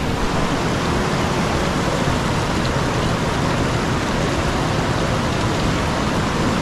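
Mountain river rushing over rocks and small cascades, a steady, even noise.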